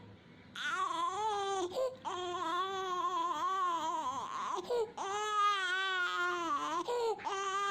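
Infant crying in four long, wavering wails, each broken by a quick catch of breath, from a baby ill with croup.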